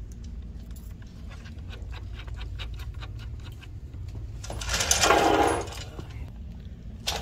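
Small metal clicks and rattles as a scooter's front axle nut is fitted onto the axle by hand, followed about five seconds in by a brief, louder rustling scuff.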